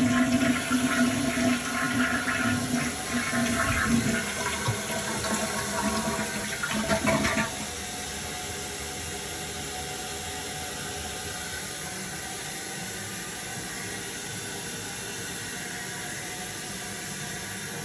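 A two-piece gravity toilet flushing as a test after being reset on a new repair flange and wax ring. The bowl drains with a loud rush of water for about seven seconds, which cuts off suddenly. A steady quieter hiss follows as the tank refills through the fill valve.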